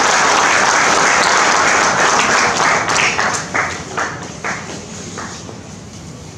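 Audience applauding: dense clapping that thins to a few scattered claps and dies away about five seconds in.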